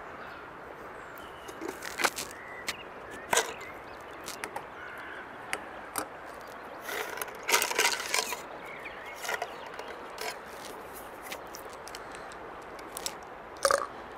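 Paintbrushes and a brush tube being handled: scattered light clicks and knocks of brush handles, with a busier clatter about seven to eight seconds in, over a steady faint background.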